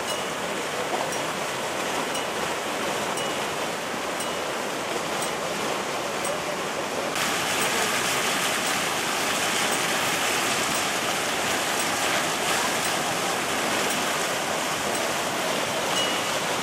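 Muddy floodwater rushing in a turbulent torrent under a railway track, a steady loud roar of churning water. It turns a little louder and hissier about seven seconds in.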